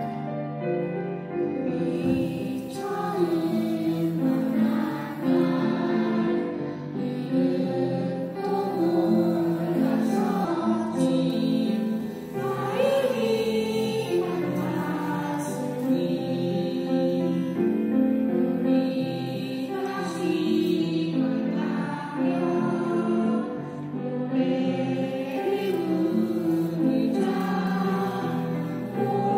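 A choir of hearing-impaired children singing a song.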